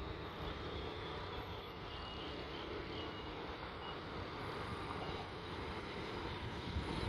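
Steady, even rumble of vehicle noise with no distinct events, the kind of traffic din heard on a city street.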